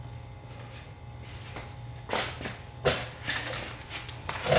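A few short metallic clinks and knocks of hand tools and metal parts being handled, about two seconds in and again about a second later, over a low steady hum.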